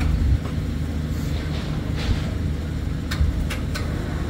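An engine running steadily with a low hum, with several short sharp knocks and clanks of equipment being handled during the dismantling of a fairground ride.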